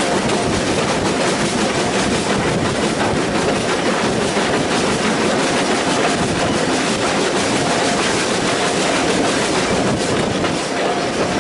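Railway carriage wheels running over the track at speed: a steady rumble with the clickety-clack of rail joints, heard from aboard the moving train.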